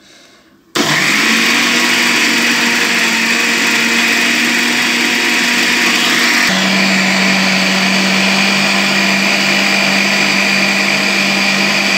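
Electric countertop blender switched on about a second in, its motor running steadily as it blends bell pepper and onion into a purée. Its pitch steps down a little about halfway through.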